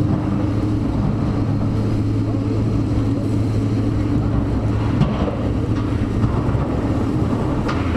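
Diesel engine of a tracked demolition excavator running steadily under load, with a couple of short knocks as its jaw attachment works the steel roof frame, about five seconds in and near the end.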